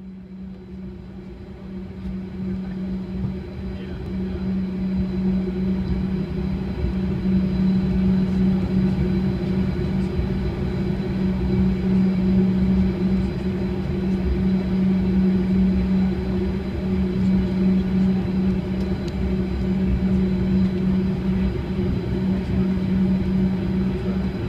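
Cabin noise inside a Bombardier CRJ200 taxiing: a steady low hum and rumble from its rear-mounted GE CF34 turbofans at taxi power, with a faint high whine above. It fades in over the first several seconds, then holds steady.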